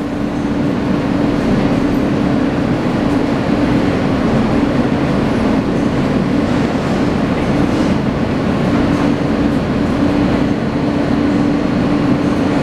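R160 subway car standing at the platform with its doors open: a steady hum from its onboard equipment, with one constant tone, growing a little louder about a second in and then holding.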